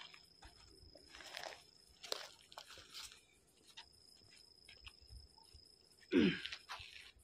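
Soft footsteps and the rustle of a cloth sheet being carried across dusty concrete, over a steady high chirring of crickets. About six seconds in, a short grunt from a person crouching down.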